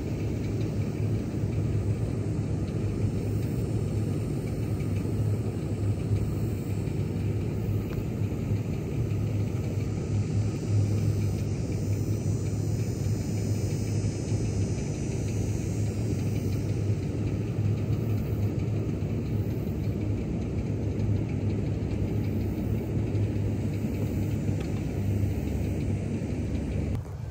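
Steady low rumble with a constant hum, unchanging throughout, with no distinct putter strike or ball-in-cup sound standing out.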